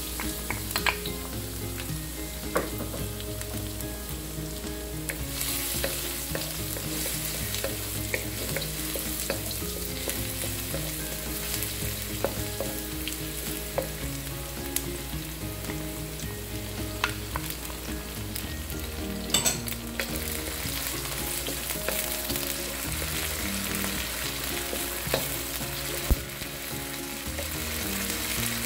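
Chopped garlic sizzling as it sautés in hot oil in a wok, stirred with a wooden spatula that knocks and scrapes against the pan now and then.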